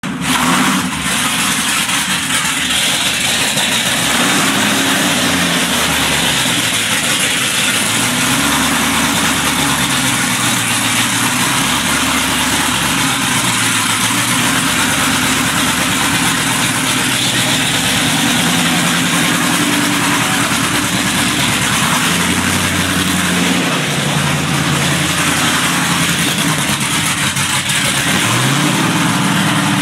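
Original 1968–69 Chrysler 426 Hemi V8 running on an engine stand on its first start in 25–30 years, its revs repeatedly rising and falling.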